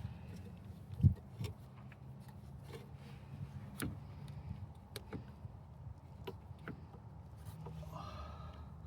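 Scattered light clicks and knocks of hands and tools working on car engine parts while a hose and clamp are fitted, with one louder knock about a second in, over a steady low hum.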